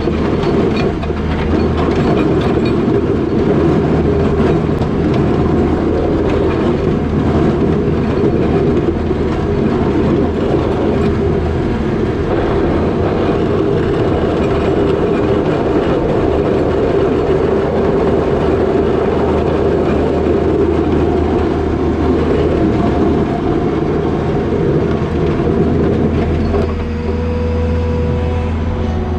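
New Holland L220 skid steer's diesel engine running hard with a steady rattle as it works a box plow through wet snow; the engine note eases off near the end.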